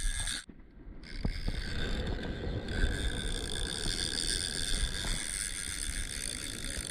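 Boat motor running steadily, with a low rumble, a high steady whine and water and wind noise. The sound cuts out almost completely for about half a second shortly after the start, then carries on.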